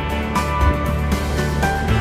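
Background music with a steady beat, bass and plucked-string or guitar-like tones.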